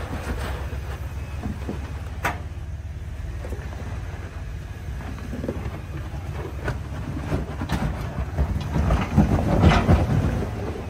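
Off-road vehicle's engine running steadily at low speed while crawling over rock ledges, with a few sharp knocks. The sound grows louder near the end.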